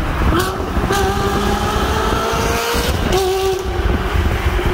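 Ferrari 360 Modena's mid-mounted V8 accelerating hard in a road tunnel, echoing off the walls. The pitch climbs for about two seconds, drops at an upshift about three seconds in with a brief crack, then holds steady.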